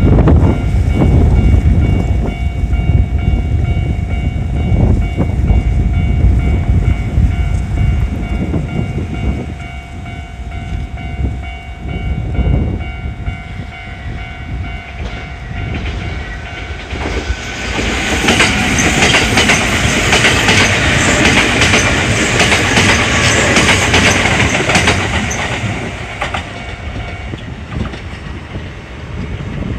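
A Japanese level-crossing warning bell ringing steadily while a Kintetsu electric train rumbles past over the rails, then a second train passes the other way with a louder, higher-pitched rush of wheel noise. The bell stops a few seconds before the end.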